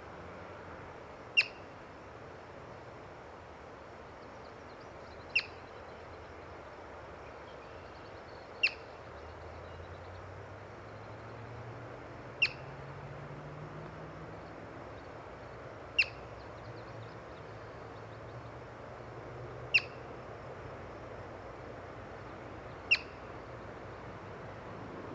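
Yellow-bellied marmot giving its alarm call: seven short, sharp, high-pitched chirps, one every three to four seconds.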